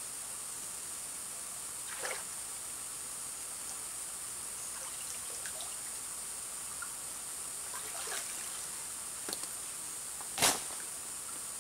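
Shallow stream water trickling under a steady high hiss, with a few short splashes as a man wades and works his hands in the water; the loudest splash comes near the end.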